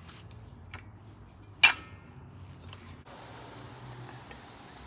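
Circular saw blade being handled and fitted onto the saw: a light click, then one sharp click about a second and a half in, followed by a faint steady hiss.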